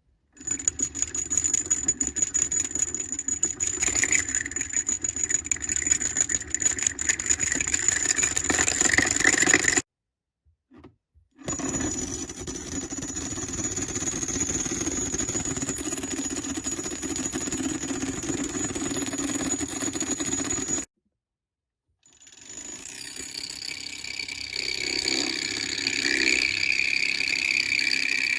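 Magnetic stirrer motor running with a steady mechanical hum and high whine. It cuts out twice and starts again, and the last time it builds up with its whine settling lower in pitch.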